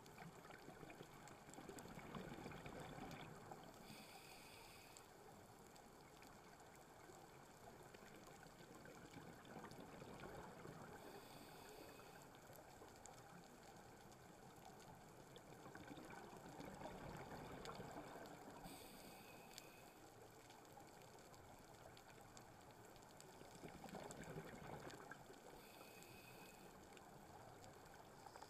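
Faint underwater scuba breathing through a regulator: a low swell about every seven seconds, each followed a couple of seconds later by a short, higher hiss.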